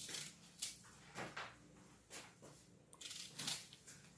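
A few short, soft knocks and rustles of kitchen things being handled, about one a second with a small cluster near the end, over a faint steady low hum.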